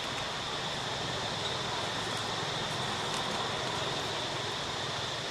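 Steady outdoor background noise: an even hiss with a thin, steady high-pitched drone over it, and no distinct event.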